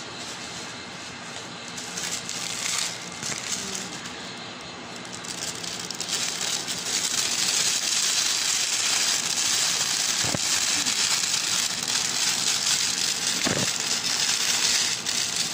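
Clear plastic bag rustling and crinkling as a raw stuffed chicken is worked into it, louder from about six seconds in, with a couple of soft knocks.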